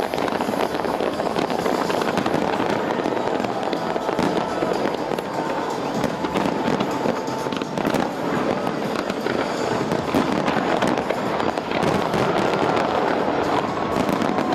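Large aerial fireworks display going off in a dense, unbroken run of bangs and crackles, with music playing underneath.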